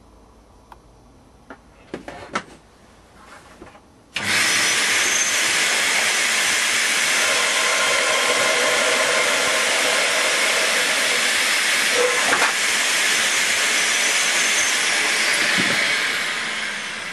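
Compressed air hissing from a blow-gun nozzle held against the inlet pipe of a homemade model beam-engine cylinder. The air drives the piston against a weighted lever. The hiss starts abruptly about four seconds in, after a few light clicks, holds steady, and tails off near the end.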